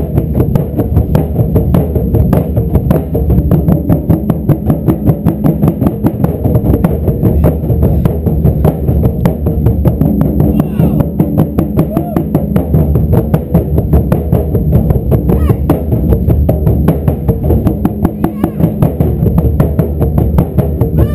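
Ensemble of Japanese taiko drums pounding out a fast, steady beat.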